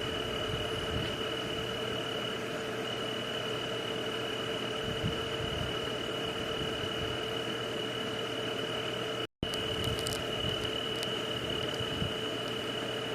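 Steady night ambience of an insect chorus: a constant high chirring tone over a hissing, humming background. About nine seconds in, it cuts out completely for a split second and resumes, like a loop splice.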